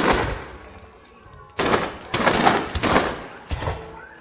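Fireworks aerial shells bursting: one report right at the start, then a quick run of four or five more from about a second and a half in, each trailing off in an echo.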